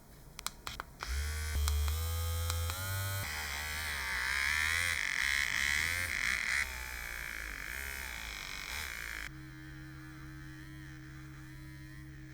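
A small electric motor tool running, with clicks at first, then a whine that wavers and rises in pitch as if under changing load, settling into a steady, quieter hum in the last few seconds.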